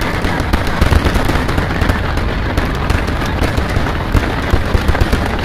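Fireworks display firing a dense barrage: rapid, overlapping booms and crackles with no break, a little louder about a second in and again near the end.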